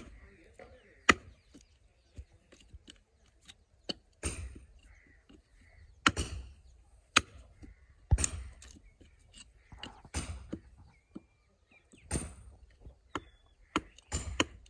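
Hand-tool work: a heavy chopping or striking stroke about every two seconds, with sharp lighter taps and clicks in between.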